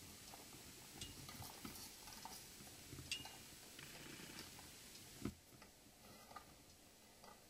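Near silence with a few faint, scattered clicks and knocks; the sharpest is about three seconds in and another about five seconds in.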